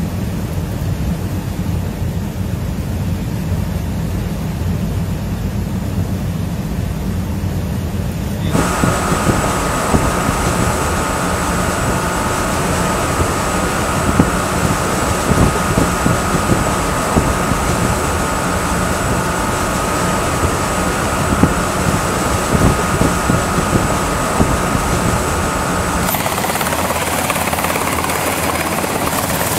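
Helicopter noise in cut-together stretches: a low, muffled rumble at first, then about eight seconds in a sudden switch to a louder, brighter rotor-and-turbine sound with a steady high whine, and a few seconds before the end a Navy MH-60 Seahawk helicopter hovering close by.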